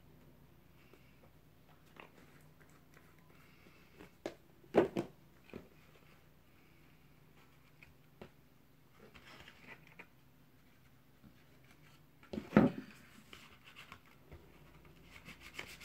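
Paper and thin card being handled, folded and pressed down by hand on a wooden worktable, with faint rustling and rubbing. There are two sharp knocks, about five seconds in and again about twelve seconds in, and a few lighter taps.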